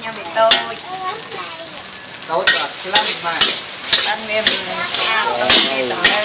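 Metal ladles scraping and clanking against a steel wok as rice noodles are stir-fried, with a steady sizzle of frying underneath. The scraping strokes come thick and fast from about two and a half seconds in.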